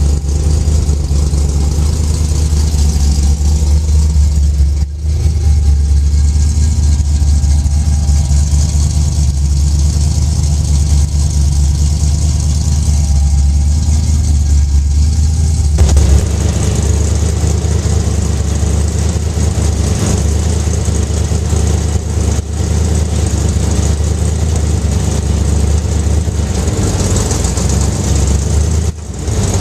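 Supercharged small-block Chevrolet V8 with a top-mounted blower idling steadily. A little past halfway the sound turns fuller and brighter.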